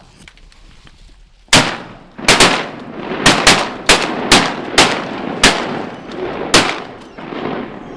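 Shotguns firing a rapid volley of about ten shots over five seconds, some overlapping as several guns fire at once, each shot trailing off with an echo.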